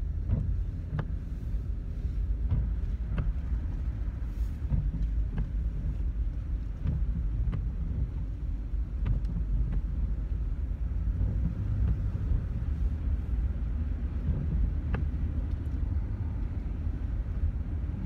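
Steady low road rumble of a moving car heard from inside the cabin, with scattered sharp ticks at irregular moments.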